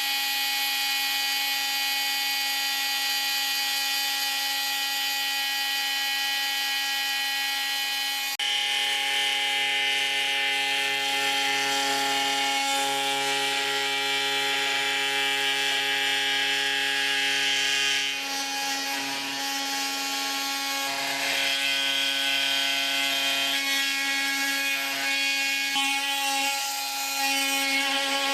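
Bosch GOP 250 CE oscillating multi-tool running under load as its accessories cut and rub on material, a steady high hum with a rasping noise over it. The tone changes abruptly about eight seconds in and again around eighteen seconds in, and it varies more unevenly near the end.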